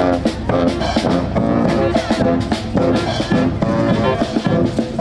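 Street brass band playing: horns carrying a tune over a steady drum beat.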